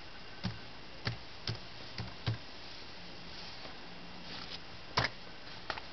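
Keystrokes on a laptop keyboard: five separate key taps in the first couple of seconds, then a louder double click about five seconds in and one more small click near the end.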